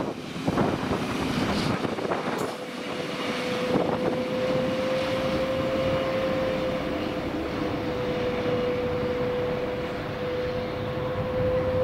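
A container freight train's last wagons clatter past, then the train runs on into the distance. A steady, even-pitched whine sets in about two seconds in and holds to the end.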